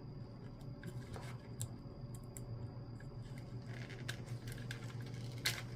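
Small clicks and light handling noise of motorcycle wiring as a harness connector is pushed back together, with one sharper click near the end as it seats. A steady low hum runs underneath.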